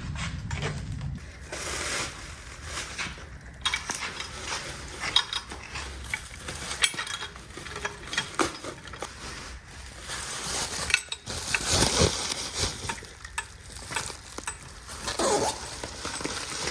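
Loose metal engine hardware clinking and knocking together as it is handled and sorted, in an irregular series of clinks and rattles.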